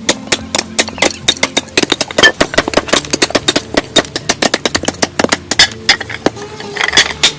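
Rapid, irregular tapping and knocking, several sharp strikes a second, over a faint low hum.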